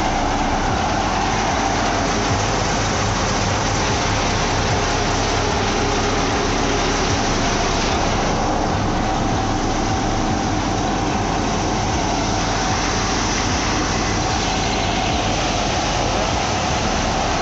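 Tractor-powered paddy thresher running at a steady speed: a constant mechanical whir with a steady hum and an engine drone underneath, as it threshes rice.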